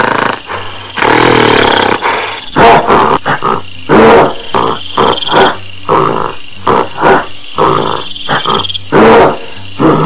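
Angry gorilla roaring and grunting: a long call about a second in, then a quick string of loud calls, one every half-second to a second.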